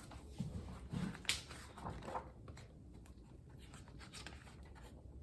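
Paper rustling and a few soft taps from a picture book being handled and its pages turned, in the first couple of seconds, then faint room tone.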